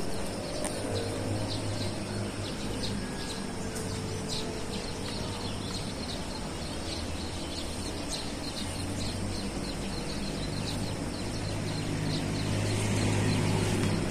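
Small birds chirping repeatedly over a steady hiss and a low hum.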